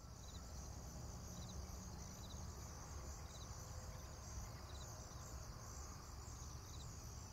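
Faint outdoor nature ambience of insects chirping: a steady, pulsing high trill with short high chirps every second or so, over a low rumble.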